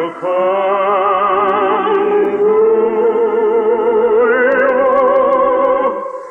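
Operatic singing with orchestra: a voice holding long notes with wide vibrato over sustained accompaniment, fading away near the end.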